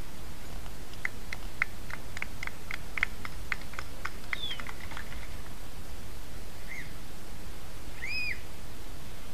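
Songbird calls: a quick run of sharp chips, about four a second, then a short falling note and two brief arched whistles near the end, over steady low background noise.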